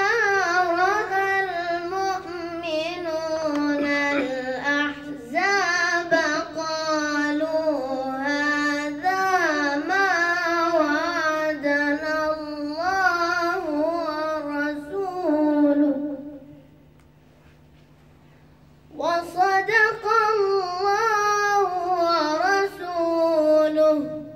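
A boy's voice chanting unaccompanied in a slow, melodic devotional style, with long held notes that waver and bend in pitch. The chanting breaks off for about two seconds past the middle, then resumes.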